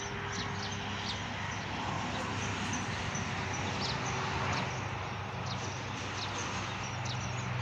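Outdoor ambience: small birds chirping in short high notes over a steady low hum.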